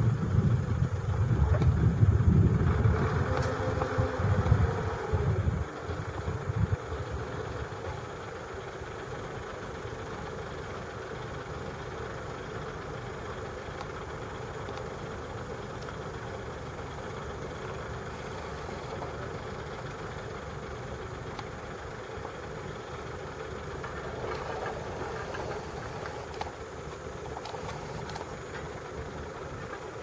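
An engine running with a low rumble for the first five or six seconds, then dying away to a steady low background noise.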